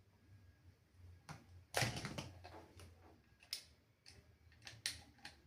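Handling noise as a cable is fitted to a vlogging microphone: a scattered series of sharp clicks and knocks, the loudest about two seconds in with a short scrape after it.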